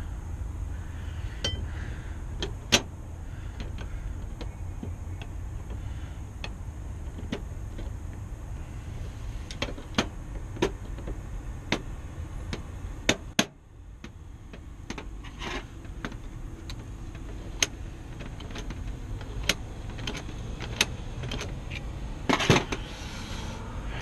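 Scattered sharp metallic clicks and taps as a mortise lock body and its small parts are handled and fitted, about a dozen spread out with a small cluster near the end, over a steady low hum.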